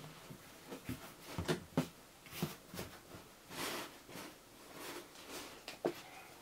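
A terry towel being spread and tucked into a cardboard box: fabric rustling and swishing, with soft irregular bumps of hands against the cardboard.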